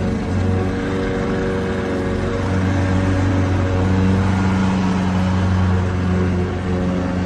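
Lawn mower engine running steadily, a low droning hum over an even noisy whirr, growing slightly louder about a third of the way in.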